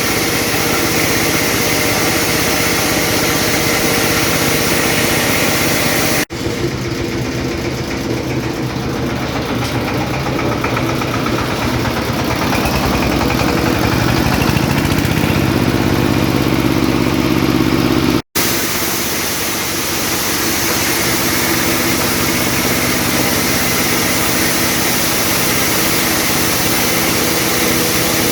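Corn flour milling machine running with a loud, steady mechanical drone and hiss. The sound drops out abruptly twice, about six seconds in and again about eighteen seconds in, and in the middle stretch the hiss is weaker and a low hum is stronger.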